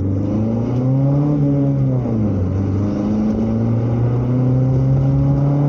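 Chevrolet Chevy's engine and aftermarket exhaust, a bullet muffler on a new pipe with the catalytic converter still fitted, pulling away under hard acceleration. The note climbs, drops sharply about two seconds in, then climbs again and holds high.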